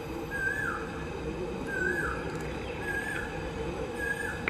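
A bird calling four times at even spacing, about one call a second and a quarter; each is a short call that rises and then drops in pitch. A low steady rumble runs underneath.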